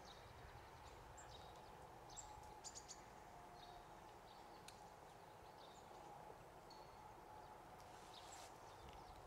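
Near silence, with faint, scattered short high bird chirps.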